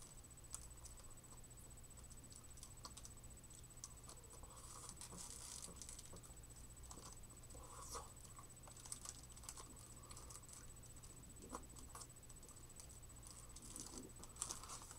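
Faint wet mouth sounds of someone eating a melting ice pop: scattered small smacks, clicks and slurps over a steady low electrical hum.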